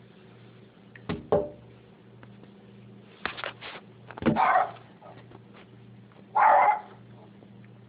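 Rat terrier alarm-barking at a noise outside the window: several sharp barks a second or two apart, over a steady low hum.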